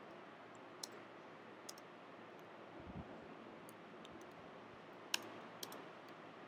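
Scattered keystrokes on a computer keyboard: a few sharp, separate clicks at an uneven pace over faint background hiss, with one soft low thump about three seconds in.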